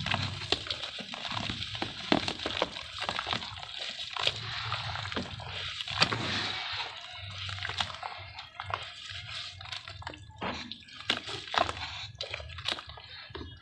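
Dry sand-and-cement shapes soaking in water, hissing steadily with many sharp, irregular crackles and drips as they crumble.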